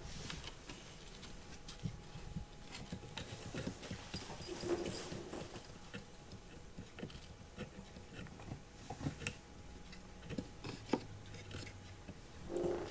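Light, irregular clicks and rustles from a kitten moving about, with a short soft sound about five seconds in and again near the end.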